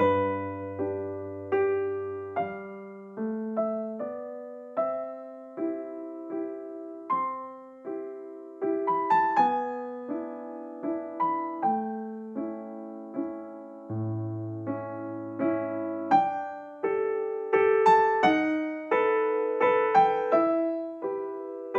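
Background piano music: a gentle melody of single struck notes, each fading away, over occasional low held bass notes.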